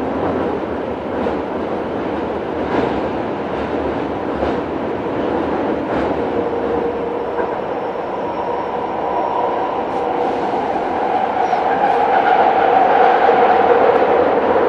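Kobe City Subway 1000 series train with Hitachi GTO inverter drive running along the line: a steady rumble of wheels on rail with a few faint clicks. A whine from the drive comes in about halfway and grows louder toward the end.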